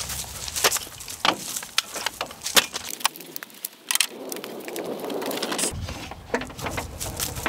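Irregular metallic clicks and knocks of a telescoping aluminium ladder as a person climbs its rungs onto a van roof, with a stretch of rustling noise around the middle.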